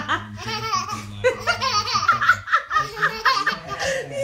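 Laughter throughout, a toddler giggling among it, with a steady low tone under the first half.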